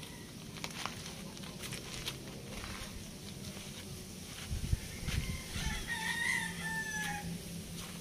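A rooster crowing once in the distance, one drawn-out call of about a second and a half starting some six seconds in. A few low thumps come just before it.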